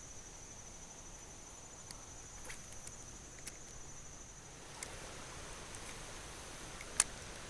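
An insect's high, steady trill over a faint outdoor hiss, stopping about five seconds in. A few faint clicks, with one sharp click near the end.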